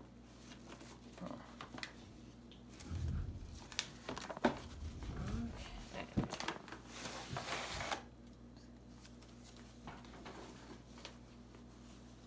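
Rustling and handling sounds: scattered clicks and knocks, low bumps about three seconds in, and a stretch of rustling from about six and a half to eight seconds.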